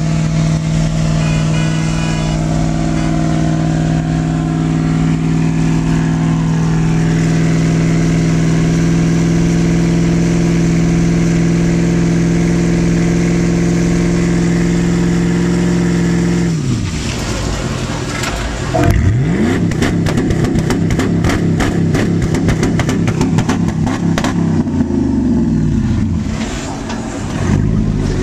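Dodge Ram pickup's engine held at steady high revs during a burnout, a constant drone for about sixteen seconds. It then revs up and down repeatedly, with many sharp clicks through the second half.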